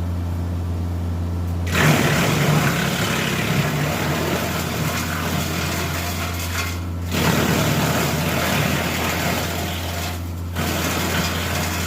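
Tractor-driven Titan wood chipper running with a steady low drone, breaking into loud, rough chipping noise three times as brush is fed through it and shredded.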